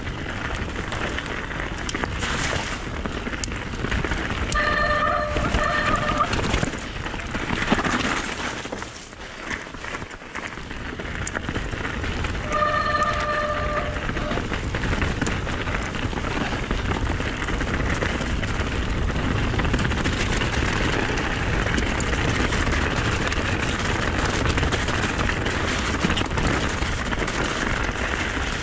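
Mountain bike running fast down a rough gravel trail: steady tyre crunch over stones with rattling from the bike. Two short squeals, about five and about thirteen seconds in.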